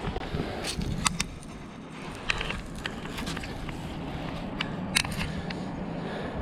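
A steady low rushing noise with scattered sharp clicks and scrapes, a handful spread across the few seconds, like gear or the camera being handled.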